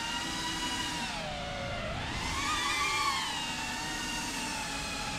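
iFlight ProTek35 FPV cinewhoop drone's motors and ducted propellers whining in flight, the pitch sagging about a second in, then climbing back up as the throttle changes and settling.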